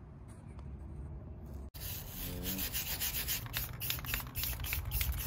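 Quick, rhythmic rubbing or scraping strokes on metal, about four or five a second, starting about two seconds in after a quieter stretch.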